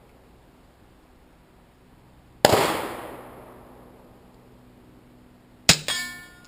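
.22 LR CCI Mini-Mag round fired from a Ruger 22/45 pistol with a compensator: a single sharp crack about two and a half seconds in, echoing away over more than a second. Near the end, a sharp metallic clank with a brief ringing.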